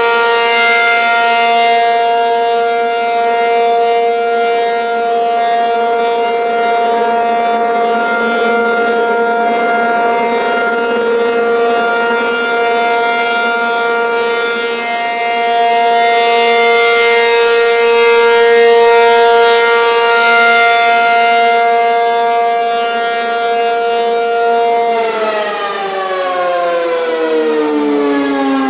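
ACA P-50 (Penetrator 50) tornado siren sounding its steady alert tone, one held pitch. About 25 seconds in the tone begins to wind down, its pitch falling steadily.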